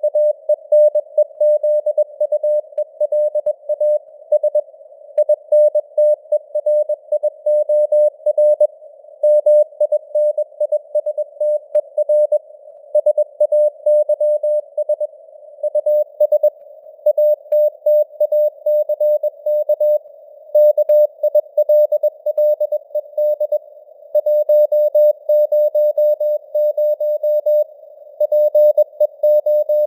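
Morse code (CW) sent at 21 words per minute: a single mid-pitched beep keyed on and off in dots and dashes over a narrow band of simulated radio static. The signal strength rises and falls a little from word to word, as simulated fading (QSB).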